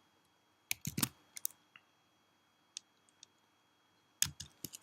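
Scattered computer keyboard keystrokes: a few clicks about a second in, one faint one midway, and a quick run near the end.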